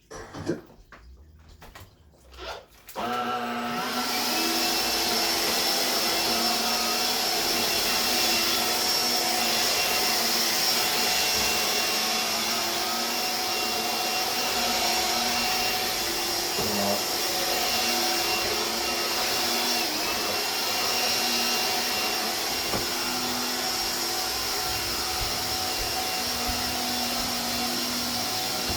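Hoover Air Cordless BH50121 cordless upright vacuum cleaner: a couple of clicks, then about three seconds in the motor starts, spins up and runs steadily. It keeps up an even rushing noise with a high steady whine over a low hum.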